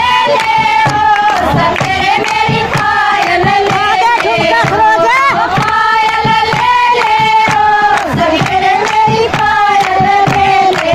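Group of women singing a Haryanvi folk bhajan together over a steady percussive beat.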